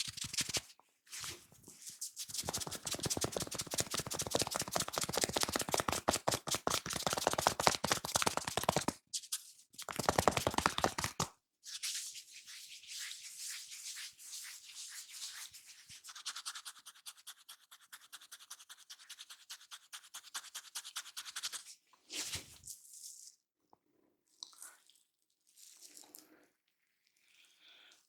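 Hair and scalp being rubbed and scrubbed by hand in rapid strokes, loud and dense for the first eleven seconds or so, then lighter, softer rubbing, ending in a few short scattered rustles.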